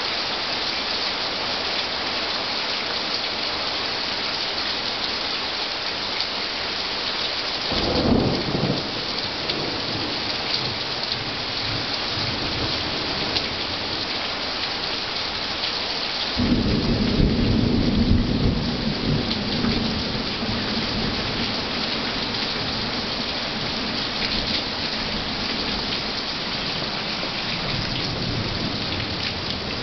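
Heavy rain falling steadily in a thunderstorm, with thunder: a brief peal about eight seconds in, then a longer, louder rumble starting a little past halfway that dies away over several seconds.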